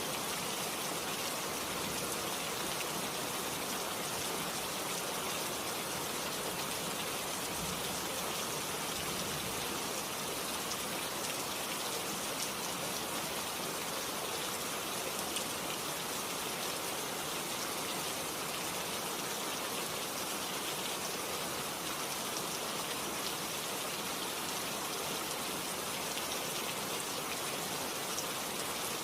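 Steady rain falling, a dense even patter of drops on surfaces, as forest rain.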